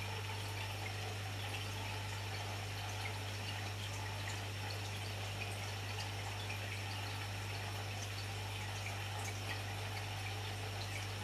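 Aquarium air stone bubbling steadily, with small pops and drips of bursting bubbles at the water surface, over a steady low hum.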